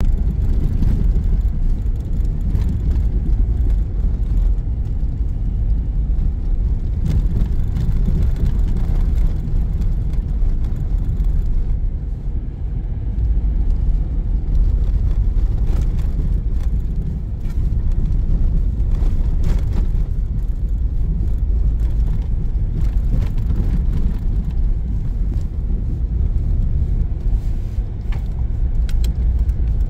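Car driving on snow-covered roads, heard from inside the cabin: a steady low rumble of engine and tyre noise.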